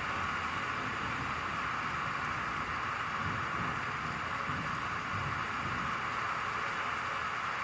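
Rain falling steadily, an even hiss with a faint low rumble underneath.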